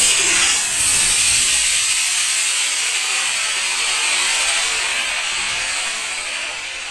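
Model rocket's D12-7 black-powder motor firing: a loud, steady rushing hiss that slowly fades as the rocket climbs away.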